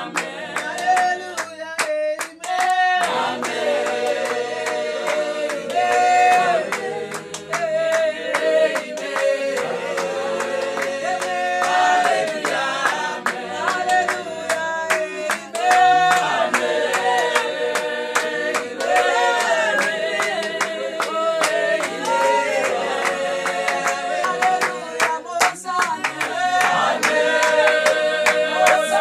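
A group of women singing together, with hand clapping throughout.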